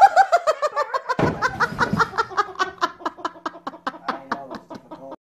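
A person laughing hard in a long run of quick, pitched "ha-ha" pulses, about five a second. The laughter slowly fades and cuts off suddenly near the end.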